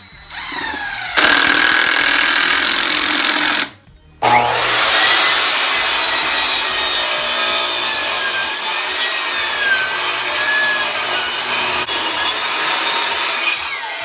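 Electric power saw cutting wood, in two runs: a short cut of about three seconds, a brief stop, then a long cut of about ten seconds, the motor's whine dipping and wavering under load before it winds down near the end.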